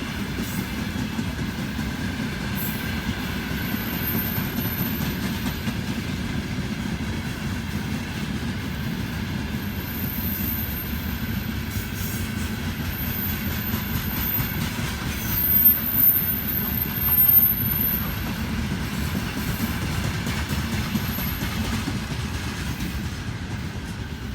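A railway train running past: a steady rumble and clatter of wagon wheels on the rails. Thin high-pitched squeals come through in the middle, and the sound grows louder for a couple of seconds about two-thirds of the way in.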